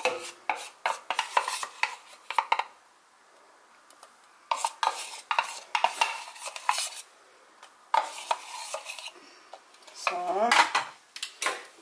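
A spoon clinking and scraping against a pot in three spells of quick strokes with short pauses between, as cornstarch is stirred into strawberry sauce.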